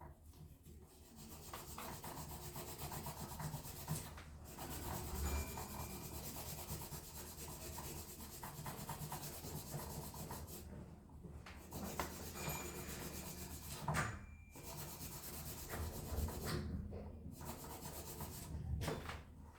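Nail file rubbing back and forth across a fingernail, a steady scratchy sound broken by a few short pauses.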